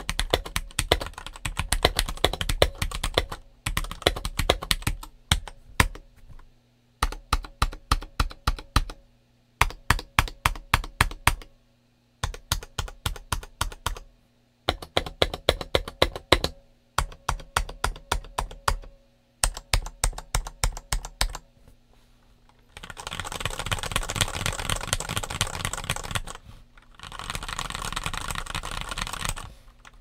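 Stock LTC NB831 75% hot-swap mechanical keyboard with Huano Red linear switches and OEM-profile PBT double-shot keycaps being typed on. Short runs of evenly spaced keystrokes are separated by brief pauses, and in the last third come two stretches of fast, continuous typing.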